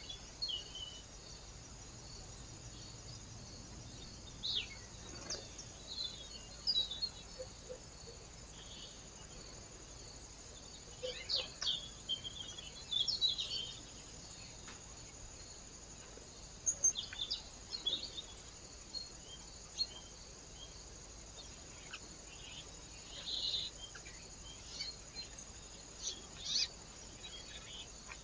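Small birds giving short, scattered high chirps, a few at a time, over a steady faint high hiss.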